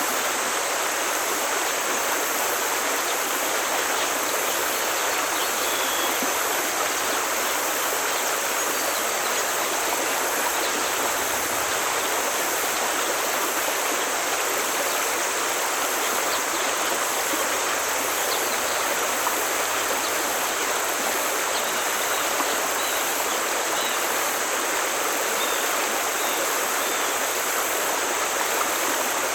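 Forest stream flowing over rocks: a steady, even rush of water that does not let up.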